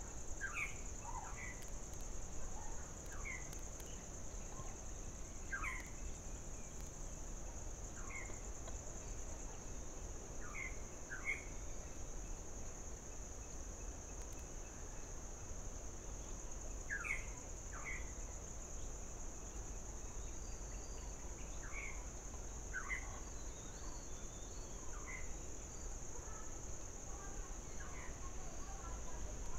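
Forest insects keep up a steady high-pitched drone, while a bird gives short falling call notes, singly or in pairs, every few seconds.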